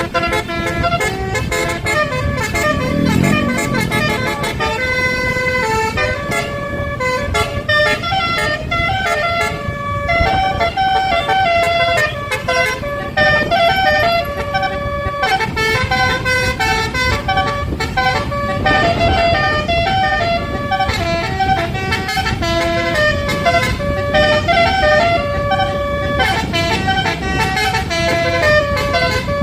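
Bus telolet horn, a set of tuned air horns, playing a quick tune of stepping notes, several sounding together, with a low rumble underneath.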